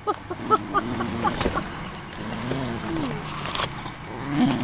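Small dog yapping: a quick run of short, high yips in the first second, then a few longer, wavering calls.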